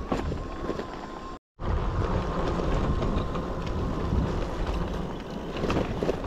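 Wind rushing over the microphone of a moving electric bicycle, with a low rumble and a thin steady whine for the first second and a half. A brief gap of silence about a second and a half in, after which the rushing noise is louder.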